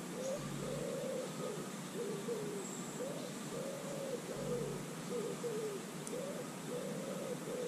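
A pigeon cooing, a run of repeated low, soft notes over a steady background hiss.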